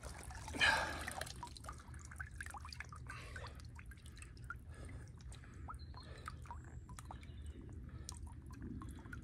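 Water dripping and trickling off a large common carp held up out of shallow water, many small scattered drips, with one louder splash about half a second in as the fish is lifted.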